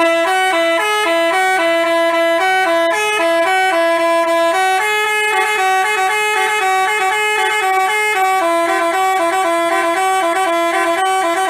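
Basuri telolet multi-tone horn playing a fast melody, its tones stepping between a few pitches several times a second.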